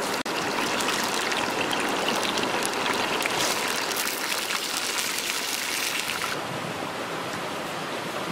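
Water splashing and trickling in a clay bowl as hands stir and rub in it, washing hairy caterpillars; a steady watery sound with many small splashes, a little quieter near the end.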